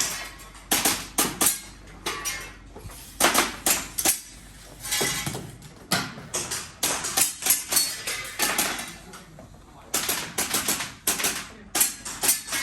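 Airsoft pistol firing quick strings of sharp shots, two to five at a time, with short pauses between strings.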